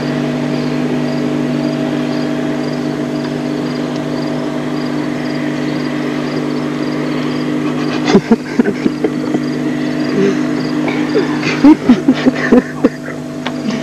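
Steady mechanical hum of a motor or engine running, made of several held low tones. From about eight seconds in, scattered sharp knocks and clicks sound over it.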